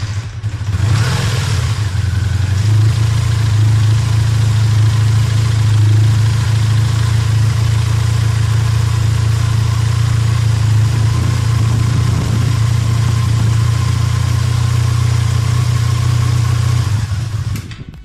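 Honda VF500F's liquid-cooled V4 engine idling steadily, a little busier for the first couple of seconds before it settles. It is being run for a few minutes after an oil top-up so that the oil level can be checked.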